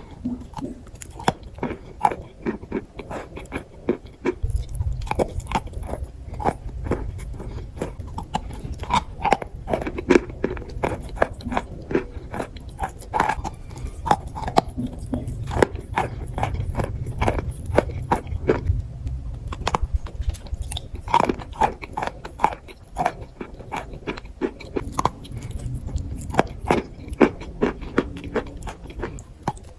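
Close-miked crunching of chalk being bitten and chewed: many sharp, irregular crunches throughout. A low rumble runs underneath from about four seconds in until about twenty seconds.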